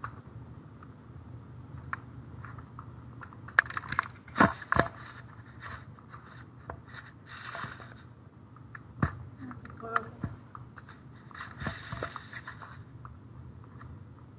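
Scattered clicks and taps on a computer keyboard, a few at a time with pauses between, over a low steady hum.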